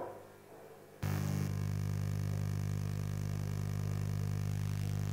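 Electrical mains hum on the sound system, cutting in suddenly about a second in and then holding steady: a loud low buzz with evenly spaced overtones.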